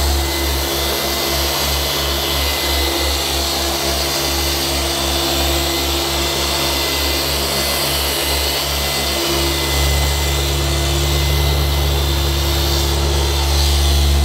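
Rupes machine polisher running with its pad held flat on the paint, compounding out wet-sanding marks in short scrubbing passes: a steady motor whir. Its low hum pulses at first and turns steady about nine seconds in.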